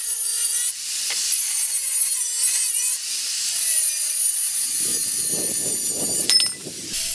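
Corded angle grinder cutting galvanized square steel tube with a cut-off disc: a steady high hiss of the disc biting the metal over a constant motor whine. For a couple of seconds near the end the cut grows rougher and heavier, with a few sharp clicks.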